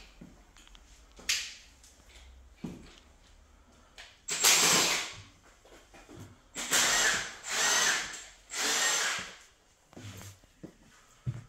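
Electric drill run in four short bursts of about a second each, with a high whine.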